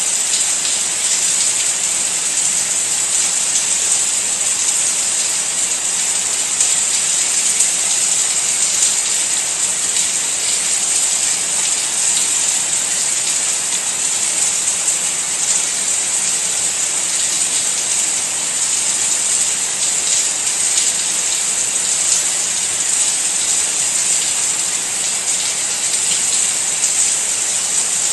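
Steady rain: a dense, even hiss with a fine patter of drops, unchanging throughout.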